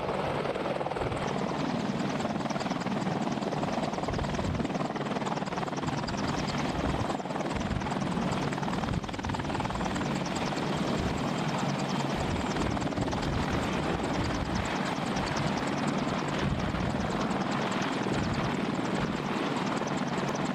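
AH-64 Apache attack helicopter running on the ground: its twin turboshaft engines and four-bladed main rotor make a steady, loud noise with a rapid, even blade chop.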